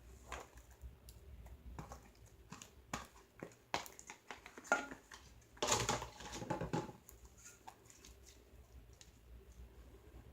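Hands handling a tub of homemade slime: faint scattered clicks, squishes and rustles, with a louder handling noise about six seconds in.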